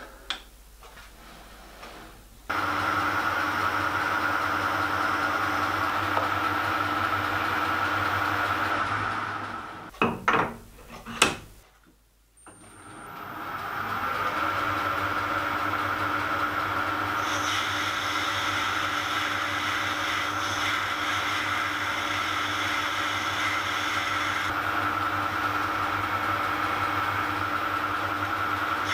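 Metal lathe running with a steady hum and whine. It winds down about ten seconds in, followed by two sharp knocks, then starts again and runs on. For several seconds in the second run, a higher hiss of a tool cutting into the graphite-filled PTFE blank rides over it.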